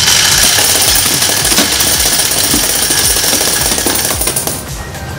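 Electric coin counter running, a dense steady rattle of quarters being fed through it. The rattle dies down about four and a half seconds in.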